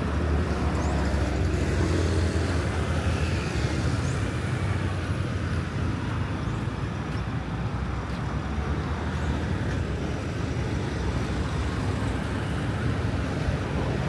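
Steady city road traffic: the continuous low rumble of passing vehicles' engines and tyres.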